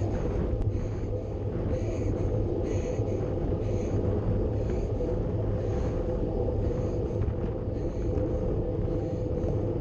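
Wind rushing over a bike-mounted action camera's microphone, with road bike tyres humming on asphalt at speed: a steady low rumble.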